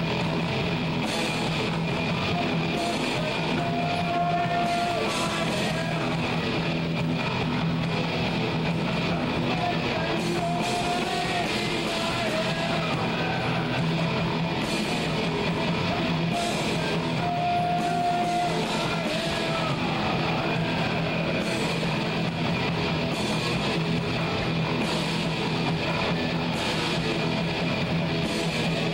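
Live rock band with distorted electric guitars, bass and drums playing steadily, the lead guitar holding a few long notes over the band.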